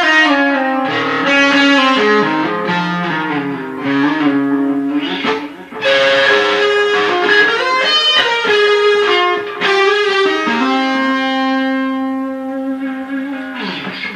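Electric guitar played through a Gresik FX Suganimajneb Series 1 effects pedal. It plays a melodic line of single notes with long sustain, then one long held note in the second half.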